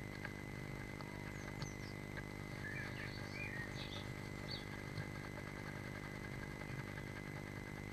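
Blue tit shifting about in the grass and moss lining of its nest box, faint rustles and scratches, over a steady low electrical hum. A few faint bird chirps come from outside the box a little before the middle.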